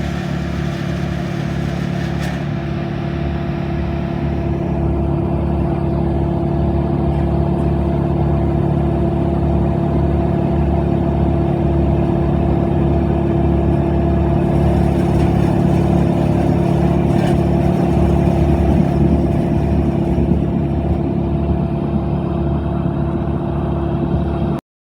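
Large engine running steadily at a constant speed, a deep even hum with a throbbing low end; it cuts off suddenly near the end.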